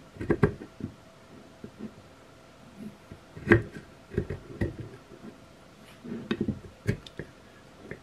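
Knife edge of a stainless steel credit-card multi tool shaving the edge of a wooden board: short scraping cuts with sharp clicks, in several clusters a second or two apart.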